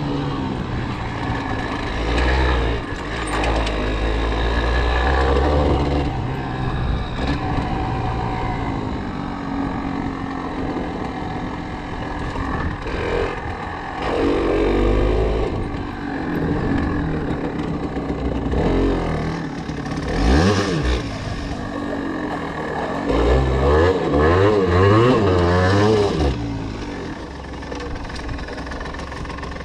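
Yamaha TDR 125's two-stroke single-cylinder engine under way, its revs rising and falling with the throttle. There is a sharp rev rise about two-thirds of the way in, then quick wavering revs for a few seconds.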